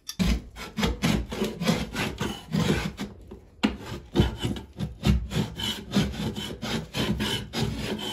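A 5-in-1 painter's tool scraping and prying along a caulked seam between a panel and the wall, in a run of short rasping strokes, several a second.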